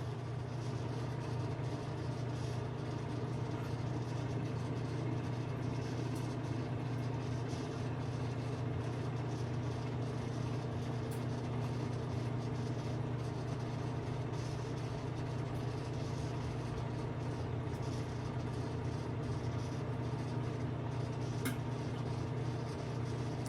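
Microwave oven running with a steady low hum while bacon cooks inside it, with a faint pop near the end as the bacon begins to pop.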